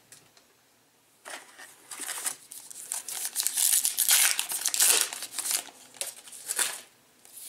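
A Topps Gypsy Queen baseball card pack wrapper being crinkled and torn open by hand: an irregular crackly rustling that starts about a second in and is loudest in the middle.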